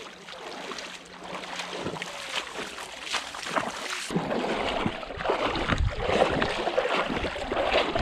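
Shallow river water rippling and splashing as a person wades through it close by. About halfway through, a low rumble of wind noise on the microphone comes in and the sound gets louder.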